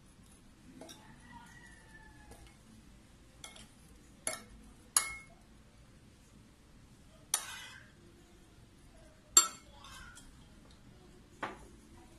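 Metal spoon clinking against a ceramic bowl while marinade is spooned over a raw whole chicken: about six sharp clinks at irregular intervals.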